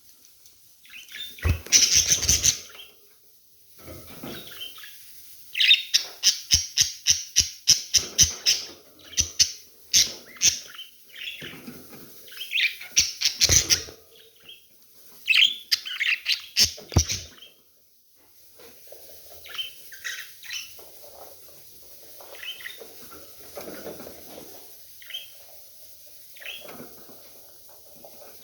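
Budgerigars chirping and chattering in loud bursts, with fast runs of sharp clicks, then quieter, scattered chirps in the second half.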